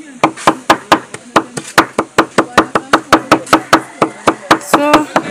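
Knife chopping garlic: rapid, even strokes, about five a second.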